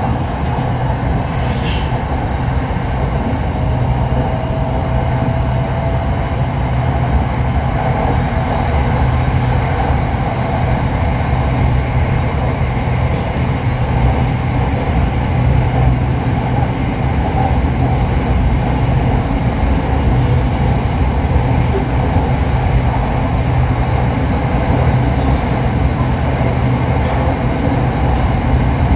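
Inside the carriage of an SRT Red Line electric commuter train, a Hitachi-built electric multiple unit, running at speed on an elevated track: a steady low rumble and hum from the wheels and running gear, with a faint rising whine in the first few seconds.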